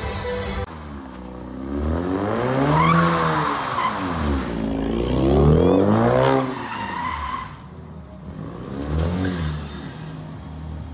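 A car doing donuts: its engine revs up and falls back three times while the tyres squeal and skid. Background music cuts off about a second in.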